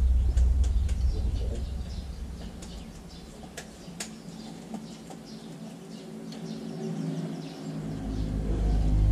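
Small birds chirping repeatedly in the background, with two sharp clicks around the middle. A low rumble fades away over the first couple of seconds and comes back near the end.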